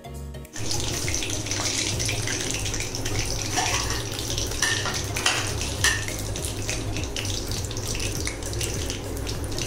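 Crumb-coated chicken pieces deep-frying in hot oil in a kadai, a steady sizzle that starts abruptly about half a second in. A few sharp metal clicks about four to six seconds in, from the wire skimmer knocking the pan as the pieces are lifted out.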